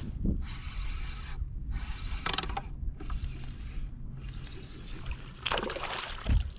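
Fishing reel being cranked in stretches, a fast whirring rattle that stops and starts several times.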